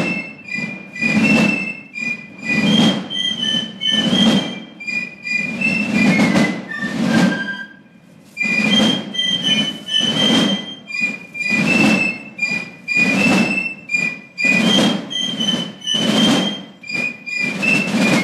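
Basel Fasnacht piccolos playing a march tune in unison over Basel drums beating a steady rhythm. Both break off briefly about eight seconds in, then start again.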